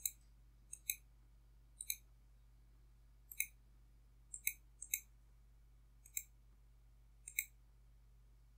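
Computer mouse clicked about eight times, roughly a second apart, each a quick paired tick of button press and release, over a faint steady low hum.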